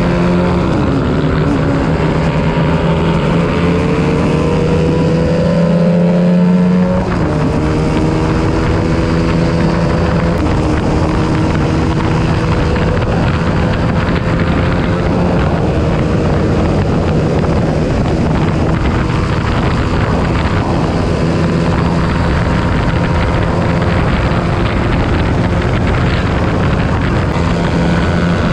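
Honda CBR125R's 125 cc single-cylinder four-stroke engine run hard at high revs, heard on board with wind rush over it. The pitch drops suddenly about seven seconds in, then climbs slowly again.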